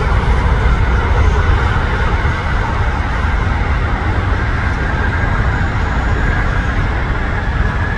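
Emirates Airbus A380-842's four Rolls-Royce Trent 970 engines at takeoff power during the takeoff roll: a loud, steady rumble, heaviest in the deep bass.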